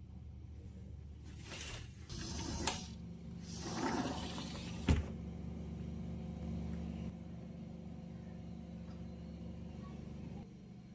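Curtains being drawn open along their rod: swishing, sliding sweeps with a sharp click about three seconds in and another about five seconds in, over a steady low hum that drops near the middle.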